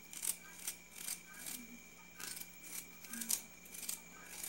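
Knife slicing an onion held in the hand, a short crisp cut about twice a second at an uneven pace, the pieces dropping into a pot.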